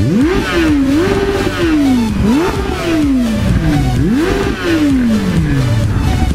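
Motorcycle engine revved in a few quick throttle blips: each time the revs jump up sharply, then fall slowly away.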